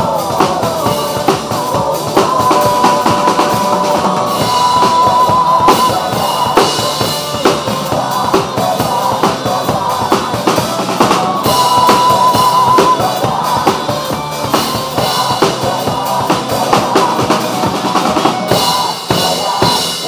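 Acoustic drum kit played hard with snare, bass drum and cymbal hits over backing music of a pop-rock song, which stops at the very end.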